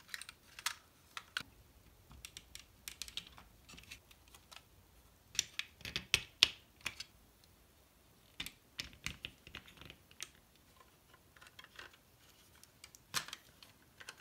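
Hard plastic parts of a snap-fit model kit clicking and tapping as they are handled and pressed together, in irregular clusters of sharp clicks, busiest about halfway through, with one loud click near the end.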